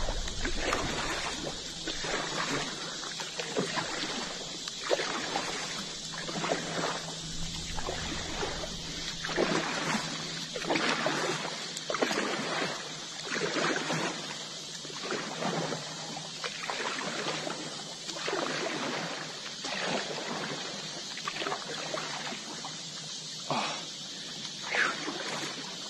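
Double-bladed kayak paddle stroking through calm water, a splashing stroke about once a second, alternating sides.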